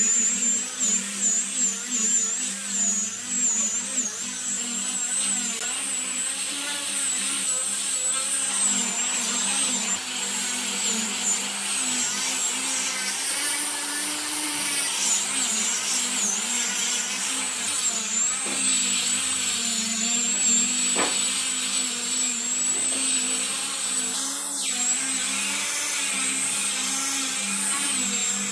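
Electric power tool running continuously with a high whine that wavers slightly in pitch, its loudness swelling and dipping unevenly over the first few seconds before settling.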